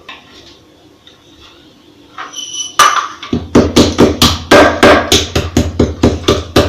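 Black peppercorns being pounded to powder with a pestle in a mortar: a few light clinks, then steady strikes at about four a second starting about three seconds in.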